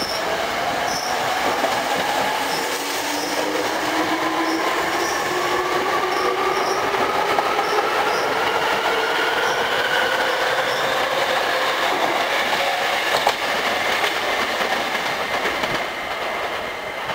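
Hankyu 3300 series electric train accelerating away from a stop. Its resistance-controlled Toyo Denki traction motors whine and rise steadily in pitch over wheel and rail noise.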